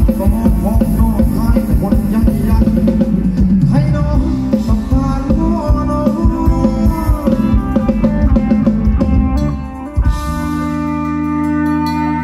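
Live band music for Thai ramwong dancing: a steady drum-kit beat with bass, guitar and a melody line. About ten seconds in the drumming stops and a held chord rings on.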